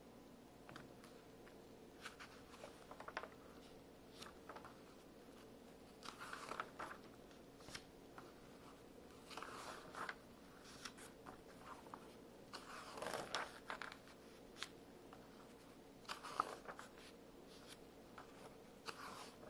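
Glossy magazine pages being turned by hand, each turn a short paper swish and crinkle, several a few seconds apart, with soft taps of the paper and fingers in between.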